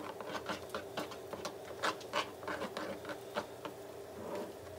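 Metal spoon stirring a thick mayonnaise-based sauce in a small bowl: a quick, uneven run of taps and scrapes against the bowl that stops near the end.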